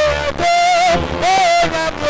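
A solo voice singing a worship song in long held notes that slide up and down between phrases, over a low steady tone.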